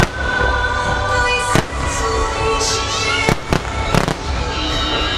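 Aerial firework shells bursting with sharp booms: one at the start, one about a second and a half in, and three close together between about three and four seconds in. Music plays underneath throughout.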